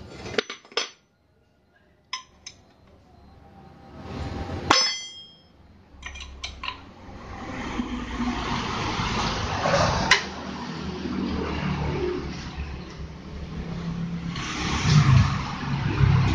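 A steel wrench clicking and clinking on a scooter's CVT pulley as the pulley nut is worked loose: scattered clicks, a ringing clink about five seconds in and another sharp clink about ten seconds in. From about seven seconds a steady rushing noise builds underneath and grows louder near the end.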